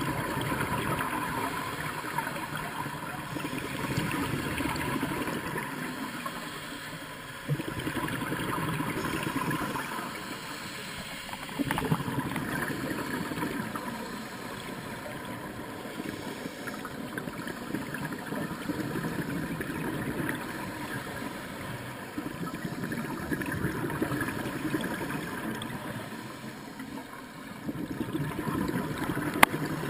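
Scuba regulator breathing heard underwater: muffled bubbling and rushing of exhaled air that swells and fades in stretches several seconds long, with a single sharp click near the end.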